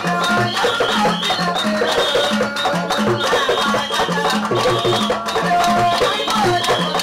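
Live traditional music: a woman singing over a steady, repeating drum and percussion rhythm.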